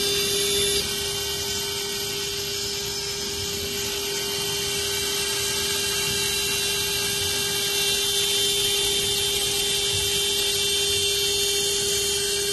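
CNC glass milling machine's spindle cutting a round hole in a glass pane under water coolant spray. It gives a steady high whine over a hissing grind of bit, glass and spraying water.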